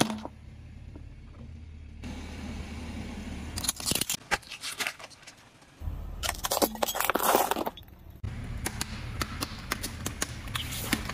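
Small objects crushed under a car tyre: repeated cracking, crunching and snapping, with a dense run of crackles about six to eight seconds in. The sound changes abruptly a few times between short clips.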